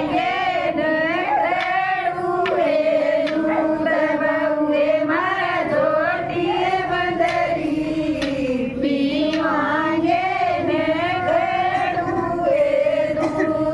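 Women singing a devotional bhajan, a continuous melodic vocal line with wavering, drawn-out notes.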